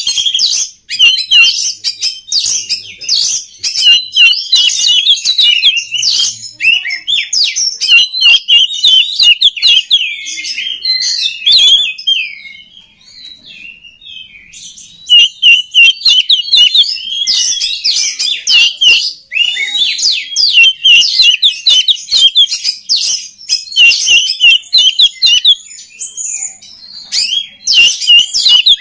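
Oriental magpie-robin (kacer) singing a loud, rapid, varied song of whistles and chattering phrases, with a softer, quieter stretch about halfway through before it resumes at full strength.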